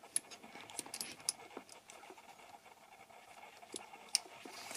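Faint rustling and a few soft, scattered clicks from a dog lying curled up and shifting slightly.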